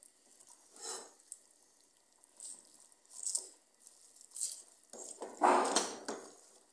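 Wooden spoon stirring shredded cabbage and goat meat in a steel pot: a string of short rustling, squelching strokes, with a longer, louder one about five seconds in.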